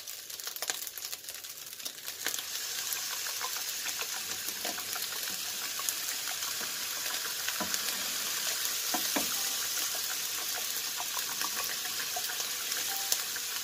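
Fried rice sizzling steadily in a hot pan, with scattered light clicks and scrapes of a spatula stirring it.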